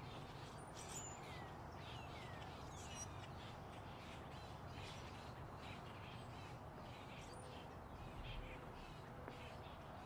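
Birds calling and chirping over a quiet outdoor background, with a few high falling whistles in the first three seconds. Soft footsteps on a concrete sidewalk come about twice a second.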